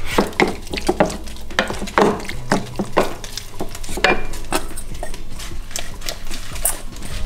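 A metal kitchen utensil stirring food in a pan, with irregular clinks and scrapes against the cookware.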